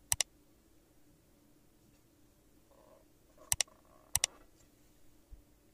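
Computer mouse click sound effects: three quick double clicks, one at the start and two more about three and a half and four seconds in, over a faint steady hum.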